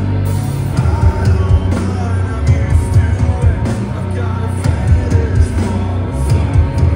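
Live rock band playing loudly: distorted electric guitars, bass and drums with a singing voice, heard from the crowd in the hall.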